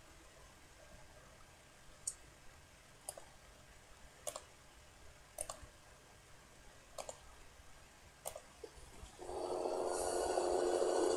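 A few sharp clicks spaced roughly a second apart. About nine seconds in, a loud, steady rushing noise like running water starts.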